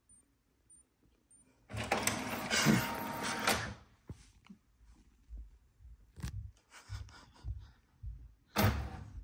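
HP OfficeJet 4655 inkjet printer working through a print job. After a quiet start, its mechanism whirs loudly for about two seconds, then gives scattered low clunks and clicks, with another short loud burst near the end.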